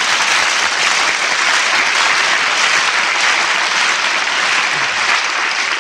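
Studio audience applauding steadily after an introduction, heard on an old radio broadcast recording.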